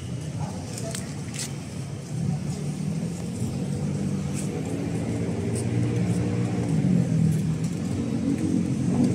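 A motor vehicle's engine running close by, a steady low rumble that grows gradually louder toward the end, with a few faint clicks.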